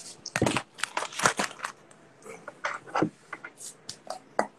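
Handling noises of a jar of kimchi being picked up and its screw lid twisted open: a quick run of clicks and scrapes, then scattered single clicks.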